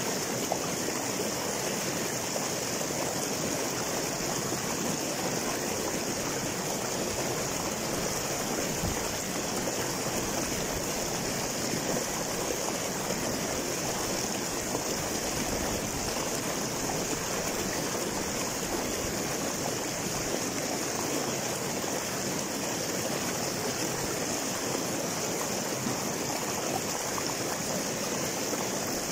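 River water rushing and splashing over boulders in small cascades, a steady, even rush.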